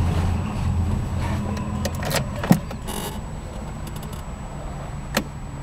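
Car ignition key being handled and turned, with two sharp clicks, one about halfway through and one near the end, over a low steady hum that drops in level after the first click.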